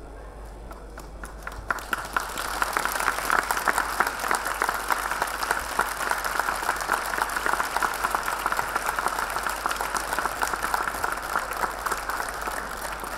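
Audience applauding: a few claps about a second in swell quickly into dense, steady applause that eases slightly near the end.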